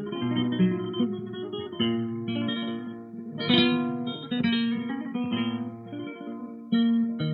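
Flamenco guitar playing an instrumental passage of a zambra: single plucked notes and melodic runs, with a louder strummed chord about three and a half seconds in.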